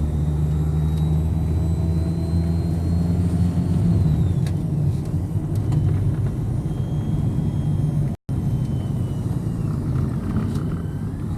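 Tour bus driving, its engine and road rumble heard from inside the cabin as a steady low drone, with a brief dropout about eight seconds in.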